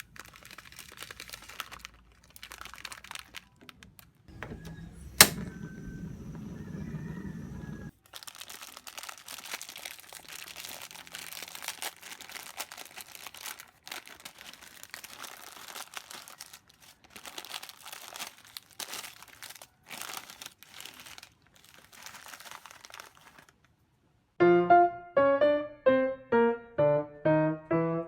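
Crinkling and rustling of something being handled, with scattered clicks and one sharp click about five seconds in. Piano music starts near the end.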